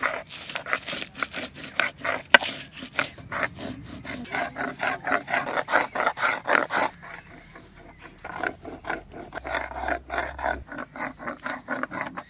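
Stone roller of a sil-batta grinding stone crushing and grinding dried red chillies, green chillies and black peppercorns into a paste, in quick rough scraping strokes, several a second. The strokes ease off briefly about seven seconds in, then pick up again.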